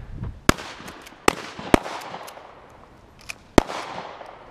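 Four gunshots at an open-air range, irregularly spaced, each cracking out with a short echo, with a few fainter, more distant shots between them.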